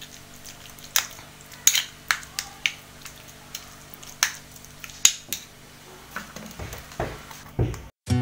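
Metal spoon mashing food in a small terracotta bowl, clicking and scraping against the clay in sharp, irregular knocks. The sound stops abruptly near the end.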